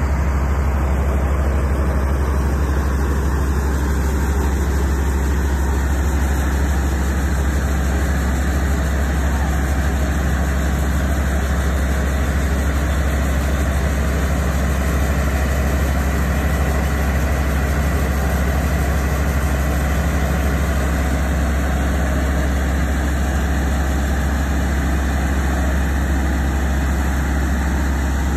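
A heavy engine idling with a steady low drone that does not change.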